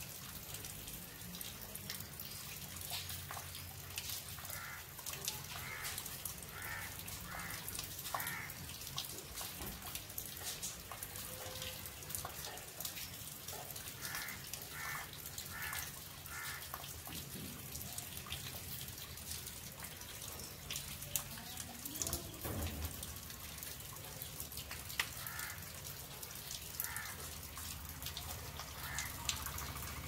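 Rainwater running and splashing off a terrace in light rain, a steady wash of water with many small drips. Several short runs of quick repeated calls come through above it.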